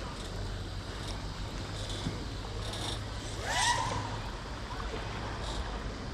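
Steady low hum of a motorboat engine over light wind and water noise. About three and a half seconds in comes a short rising, whistle-like tone.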